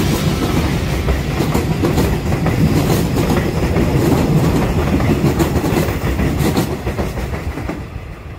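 Korail electric commuter train passing close by, with a rumbling run and wheels clacking over rail joints. It fades away over the last couple of seconds.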